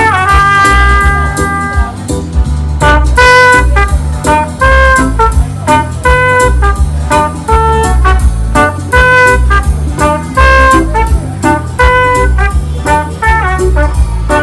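Background music with brass lead lines over a steady pulsing bass, in a jazzy style.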